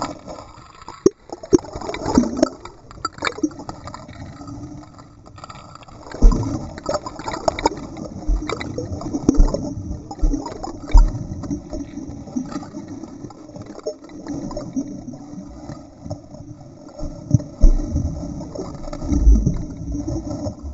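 An Entlebucher Sennenhund swimming, heard through a half-submerged waterproof camera housing: muffled splashing, gurgling and bubbling from its paddling legs, with irregular dull thumps and knocks.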